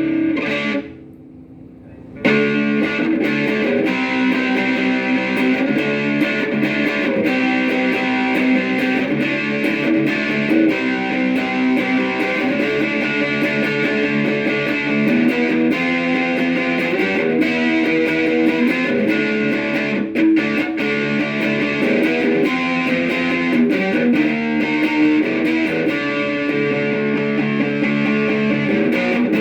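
Electric guitar played through a Joyo AC Tone JF-13 pedal, an amp-in-a-box voiced after the Vox AC30, picking a continuous run of notes and chords. It breaks off briefly about a second in, then plays on without a stop.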